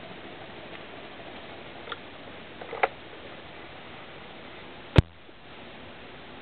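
Hunter Original ceiling fan with its oil-lubricated cast-iron motor running, a steady even whoosh. There are two small clicks about two and three seconds in and one sharp click about five seconds in.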